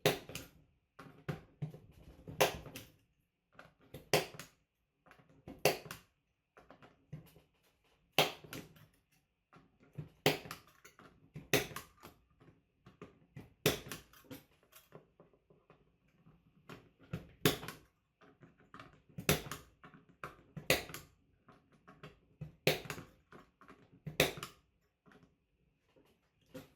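Punch-down tool seating network cable wires into a punch-down block or jack one by one: about a dozen sharp snaps, one every second and a half to two seconds, with fainter wire handling between.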